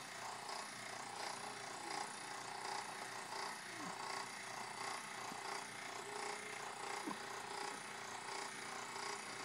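Rhythmic rubbing and creaking, about three strokes every two seconds, as a submersible well pump's drop pipe is pulled up hand over hand through a pipe-pulling frame.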